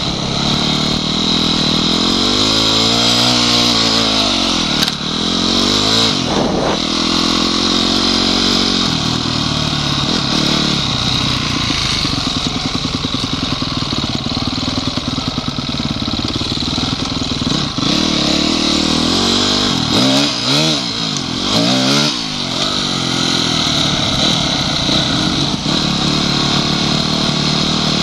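Honda CRF250X's single-cylinder four-stroke engine running on the move, its revs rising and falling with the throttle, with clear swells about three seconds in and again around twenty seconds in. A few sharp knocks cut through it.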